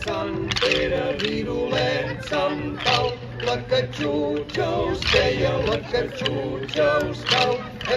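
Traditional Catalan dance music with singing voices over a steady instrumental accompaniment.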